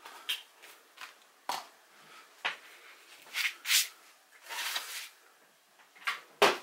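Cardboard packaging and accessory boxes being handled and slid across a tabletop: scattered rustles and scrapes with light knocks. The sharpest knock comes near the end.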